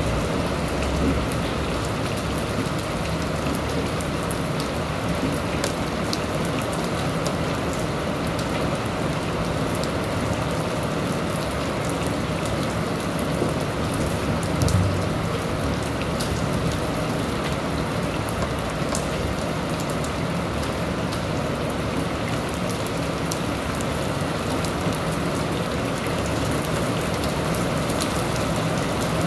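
Steady rainfall, with scattered sharp drip ticks throughout and a brief low thump about halfway through.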